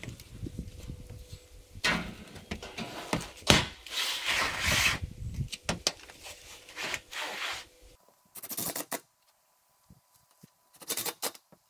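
Corrugated sheet-metal roofing panel being laid down and slid over the metal roof, with scraping and rubbing of metal on metal and a sharp knock about three and a half seconds in. Later come a few short, quieter scrapes and knocks as the panel is nudged into line.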